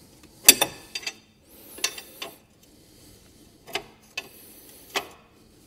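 Ratchet spanner clicking in separate short strokes, about seven, as a tight nut is slowly worked up a stud's thread. The nut is stiff near the top of the thread, where it tends to bind.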